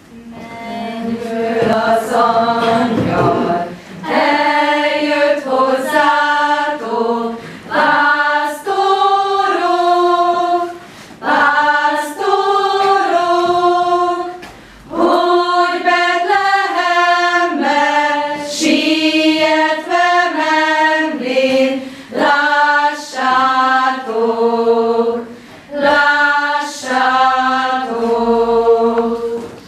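A choir singing a song in phrases, breaking off briefly between them.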